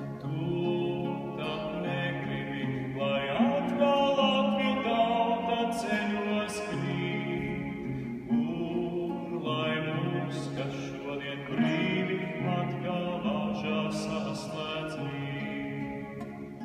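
A man singing a slow Latvian song in long held notes, accompanied on a nylon-string classical guitar.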